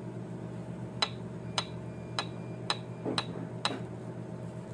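Light metallic clicks from the oil pump's drive gear and shaft being worked by hand, six of them about half a second apart, over a steady low hum.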